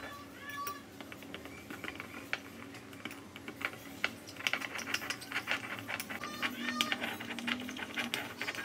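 A metal teaspoon stirring thick bleach cream and activator powder in a small ceramic bowl: quick, irregular clicks and scrapes of the spoon against the bowl, busier in the second half.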